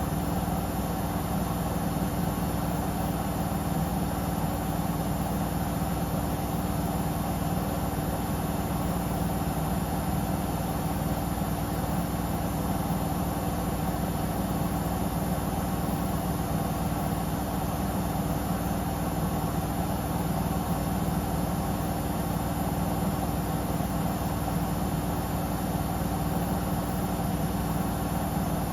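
Samsung Eco Bubble digital inverter washing machine spinning its drum at a steady speed on a test spin: an even, unchanging motor hum.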